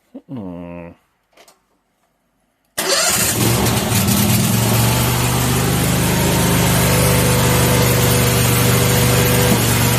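Mini skid steer's engine: a brief cranking that rises in pitch, then a gap, then the engine running steadily at a fast idle from about three seconds in.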